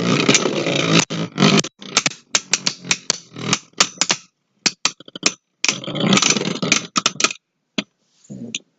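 Beyblade Burst spinning tops (Draciel S and a custom Dranzer S) grinding and clashing in a plastic stadium: bursts of scraping and sharp clicks broken by short pauses, dropping to a few scattered clicks after about seven seconds.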